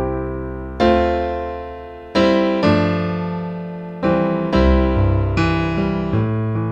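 Piano playing a slow worship-song melody harmonised in chord blocks: the melody note on top of a full right-hand chord over a left-hand bass note. A new chord is struck roughly every second and left to ring and fade.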